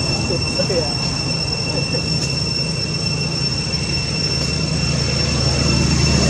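Steady high-pitched insect drone, two even tones held unbroken, over a low rumble that swells slightly near the end.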